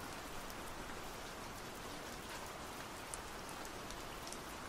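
Steady rain-like hiss with light, scattered patter, even throughout.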